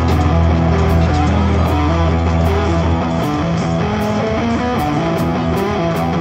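Background rock music with guitar and a steady beat; the deep bass drops out about halfway through.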